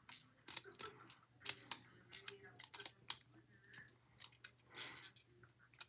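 Scattered small clicks and taps from a toy game being handled, with the loudest one a little before the end.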